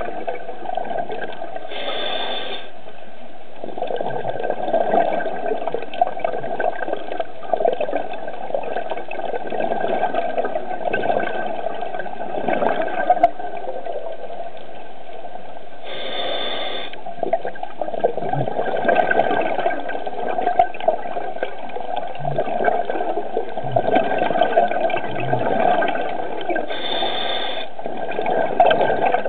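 Underwater sound of a scuba diver breathing through a regulator: three short hisses, one on each inhale, roughly every eleven to fourteen seconds, each followed by a long stretch of bubbling as the exhaled air escapes.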